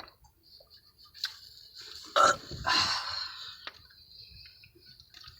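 A woman's loud, short throaty sound about two seconds in, then a breathy gasp for air, as she swallows water in gulps with her head tilted back to stop her hiccups.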